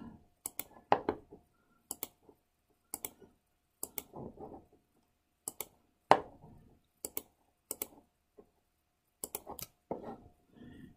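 Computer mouse clicking, mostly in quick press-and-release pairs about once a second, with a few duller taps among them, the loudest about six seconds in.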